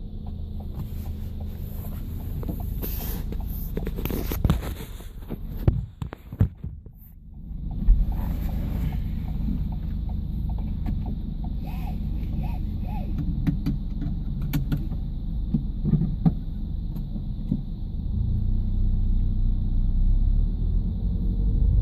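Ford Fiesta heard from the rear with an abnormal noise whose cause is unknown: a steady low rumble with a faint steady high whine above it. Several sharp knocks come between about four and six seconds in, the sound drops away briefly around seven seconds, and the rumble grows louder near the end.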